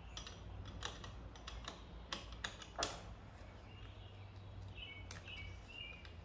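Sharp metallic clicks and clinks of a pedal wrench working a bicycle's left pedal, which is reverse-threaded, into the crank arm: about ten irregular clicks in the first three seconds and one more about five seconds in. A bird chirps in the background through the second half.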